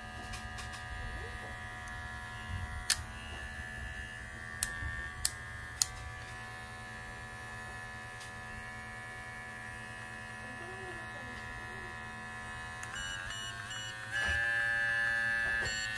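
Voguers digital pet hair clipper running with a steady electric motor hum. A few sharp clicks come in the first half. Near the end its pitch shifts in steps and it runs louder and higher as the speed button steps it through its 500-rpm speed levels.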